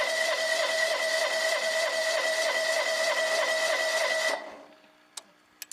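Electric starter cranking the Wheel Horse 257H garden tractor's engine with a steady whine and a regular pulse a few times a second, without the engine firing; it stops abruptly about four seconds in, followed by a few faint clicks. The engine won't start on the substitute ignition switch, which the owner suspects lacks the extra wire that gets power to the electronics.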